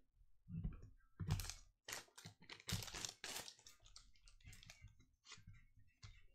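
Trading cards being handled: a stack is flipped through and cards are set down, giving a faint, irregular run of card-stock clicks and snaps.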